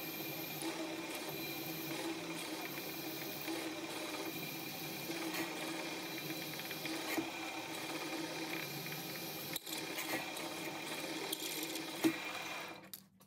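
Milling machine spindle running steadily while a 10 mm reamer cuts through a drilled hole in an aluminium block. A short sharp click comes about twelve seconds in, and the machine sound falls away just before the end.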